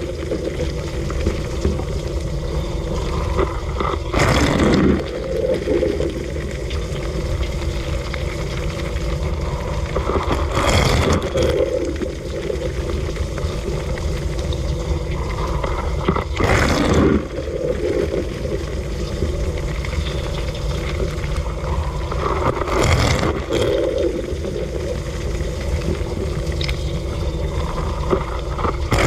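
Dishwasher running a wash cycle, heard from inside the tub: a steady churn of spraying water and pump hum, with a louder whoosh of spray sweeping past about every six seconds.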